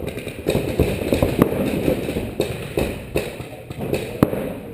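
Paintball markers firing: sharp pops in quick, irregular strings, dense at first and thinning out toward the end.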